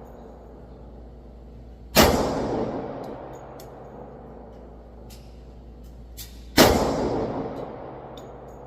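Two shots from a Glock 20 10mm Auto pistol, about four and a half seconds apart, each followed by a long echoing decay.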